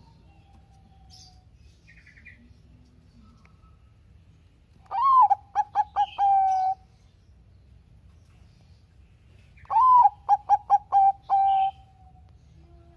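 Zebra dove (perkutut, Bangkok type) singing two song phrases a few seconds apart. Each phrase opens with a rising-then-falling note, breaks into a quick run of short notes, and ends on a held note.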